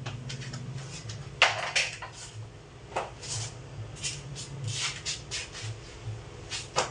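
Bathroom cleaning noises: a string of irregular short scraping, brushing and knocking sounds, the loudest about a second and a half in.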